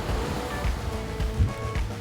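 Background music with held notes and low thuds, over the wash of ocean surf.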